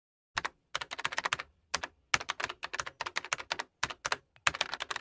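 Computer keyboard typing in several quick bursts of rapid clicks, with short silent gaps between the bursts.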